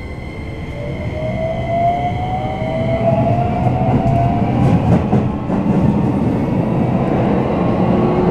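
Toyo hybrid SiC VVVF inverter and traction motors of a Keikyu New 1000 series train pulling away from a station. The whine rises in pitch as the train gathers speed, heard from inside the car over growing wheel-on-rail rumble. Near the end a lower tone takes over and begins to climb again.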